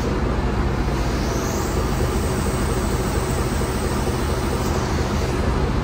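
Foden recovery truck's diesel engine running steadily, a low even hum.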